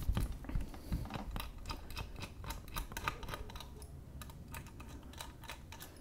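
Small Phillips screwdriver unscrewing a screw in the base of a Blue Yeti microphone: irregular light clicks and ticks as the driver turns and hands shift on the metal body, with a slightly louder knock at the very start.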